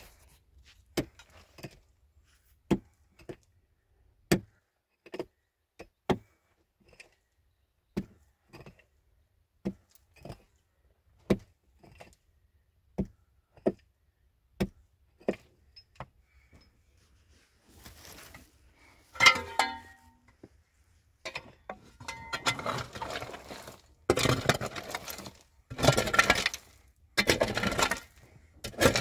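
A hand tool striking hard ground or stone over and over, a sharp knock about every 0.8 s for just over half the time. It then gives way to longer, rougher strokes with clatter, about one a second.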